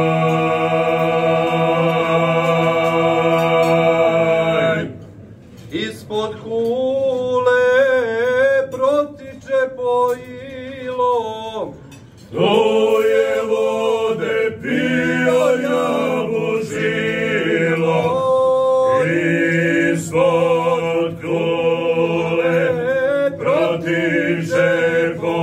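Male vocal group singing unaccompanied in harmony, slow and chant-like. Long held chords open it, then after a short break comes a wavering, ornamented passage, and then the held chords return with brief pauses between phrases.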